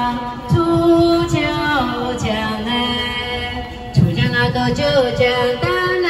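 Young Miao women singing a folk song together live, with long held, bending notes. A few low thumps sound under the singing, one near the start and one about four seconds in.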